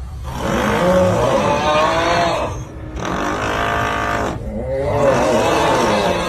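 A person snoring loudly: two long snores of about three seconds each, with a short break between them.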